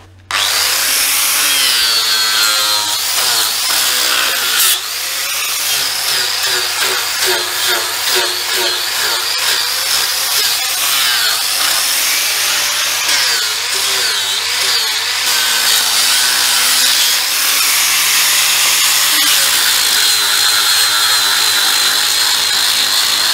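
Electric power tool working a piece of tamarind wood, running continuously with its pitch wavering up and down as the load changes, over a steady low hum.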